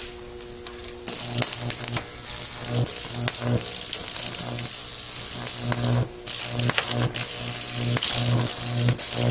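A microwave oven transformer hums steadily. About a second in, its high-voltage arc strikes onto a phone's circuit board and burns with a loud crackling mains buzz. The arc drops out briefly about six seconds in, then strikes again.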